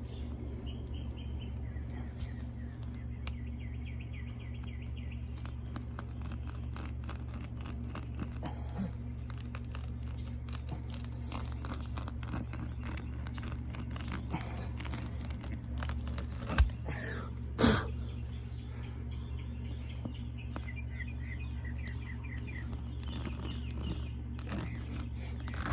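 Plug kit's T-handle reamer worked in and out of a tire puncture, giving a run of quick scraping clicks, with two loud knocks partway through. Birds chirp in the background over a steady low hum.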